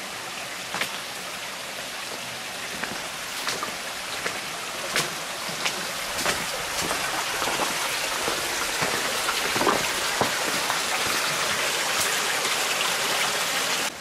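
Rushing water of a small stream in a rocky gorge, a steady hiss that grows gradually louder, with scattered sharp knocks of footsteps on rock.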